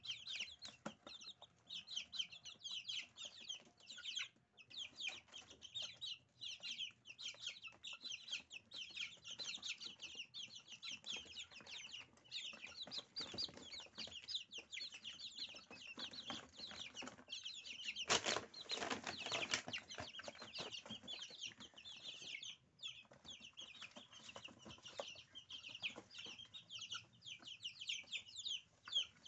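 A flock of 20-day-old Silkie chicks peeping continuously in rapid, overlapping high-pitched chirps. About 18 seconds in there is a louder, noisy burst lasting around two seconds.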